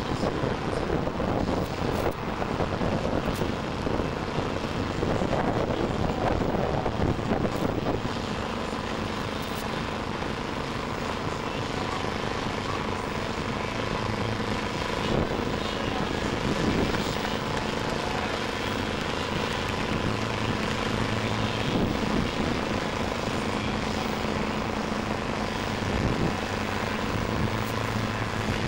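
Steady mechanical drone of a running motor, holding a constant pitch over a continuous rushing noise.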